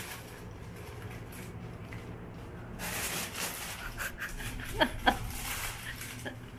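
Thin plastic carrier bag rustling and crinkling as a cat moves around inside it, busiest from about halfway through. Two short, sharp cries stand out about five seconds in.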